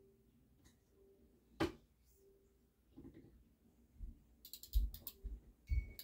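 Scattered handling noises: a sharp click about one and a half seconds in, then several low thumps and knocks in the last two seconds.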